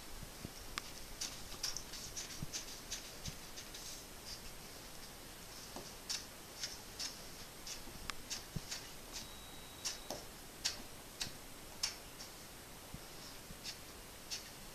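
Faint, irregular light clicks and ticks, roughly one or two a second, some sharper than others, over a quiet room background.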